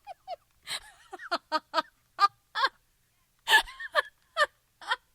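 A woman laughing in short pitched bursts, with a quick run of about four 'ha's a second early on and a loud breathy gasp about three and a half seconds in.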